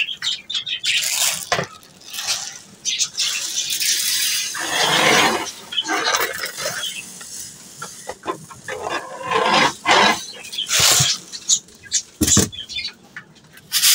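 Dry seed pouring and rattling out of a plastic jar into a feeding trough, in several hissing pours, with a sharp knock near the end.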